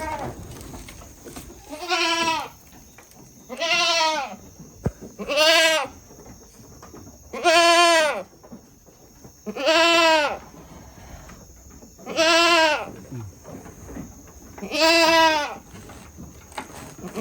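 Goat bleating over and over: about seven loud calls, each under a second long and rising then falling in pitch, coming roughly every two seconds.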